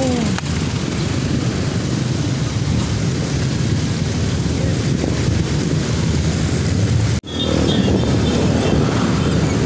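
Steady road-traffic noise and rushing air while riding along a busy road. The sound cuts out for an instant about seven seconds in.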